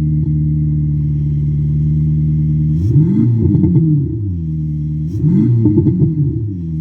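Vehicle engine idling steadily, revved twice, about three seconds in and again about five seconds in. Each time the pitch climbs and then falls back to idle.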